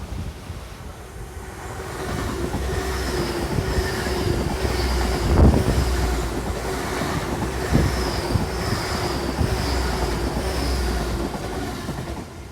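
Great Western Railway Intercity Express Train passing through the station on its underfloor diesel engines: a steady rumble with a high-pitched whine that builds about two seconds in and fades near the end. Two sharp thumps are heard, about five and a half and eight seconds in.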